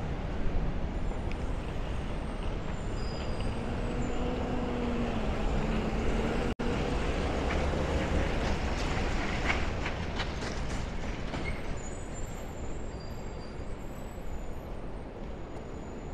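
Street traffic with a steady low rumble and the hum of a heavy vehicle's engine, followed by a scatter of short clicks and knocks. The sound drops out for an instant about six and a half seconds in.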